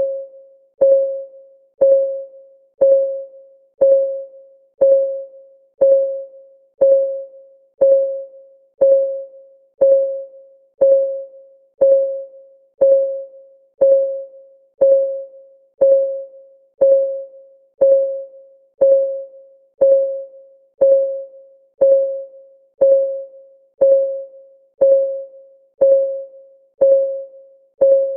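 Clock ticking: one sharp tick a second, perfectly even, each tick carrying a short pitched ring that fades quickly.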